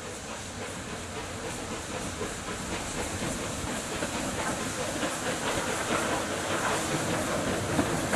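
Steam locomotive coming tender-first toward the listener, its steam hissing over the rumble and knocking of the wheels on the rails, growing louder as it approaches.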